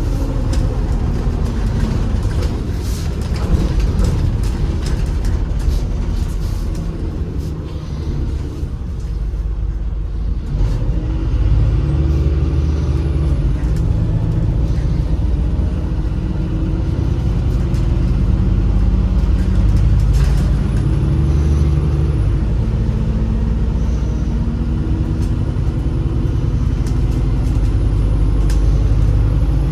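Inside a MAZ-203 city bus under way: the engine and road noise run steadily. The engine note rises as the bus accelerates, about twelve seconds in and again around twenty seconds in.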